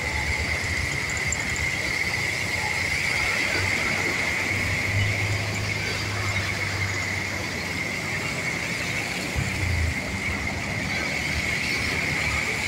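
Slow traffic wading through a flooded road, heard from a moving vehicle: a low engine hum and the hiss of tyres through shallow water, with a steady high-pitched tone over it.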